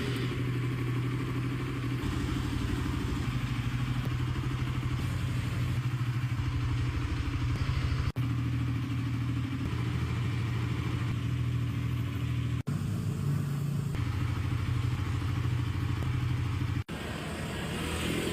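Suzuki Raider Fi motorcycle's single-cylinder engine running at a steady idle, broken three times by brief, abrupt dropouts.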